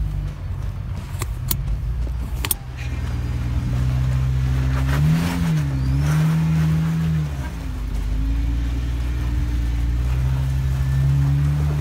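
Jeep Wrangler Rubicon's engine running at low speed while crawling over rock, its revs rising and falling a couple of times around the middle. A few sharp knocks in the first few seconds.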